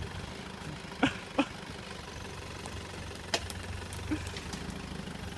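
Vehicle engine running steadily at low revs while the vehicle is manoeuvred between trees. A few short sharp clicks or snaps come over it about a second in, a moment later, and again past three seconds.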